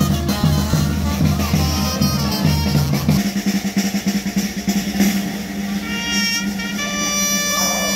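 Background music with drums and a pulsing bass beat; about three seconds in the bass beat drops out and held chords carry on.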